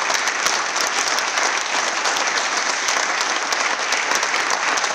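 Sustained applause: many people clapping steadily, dense and even throughout.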